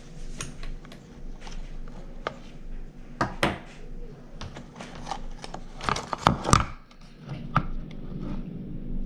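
Scattered clinks and knocks of small metal engine parts and bolts being handled during the teardown of a Kawasaki KX65 engine, loudest about three and a half seconds in and again around six seconds in, over a faint steady hum.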